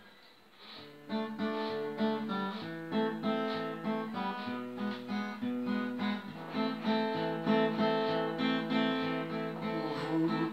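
Acoustic guitar playing a song's instrumental introduction, plucked notes over held bass notes, starting about a second in.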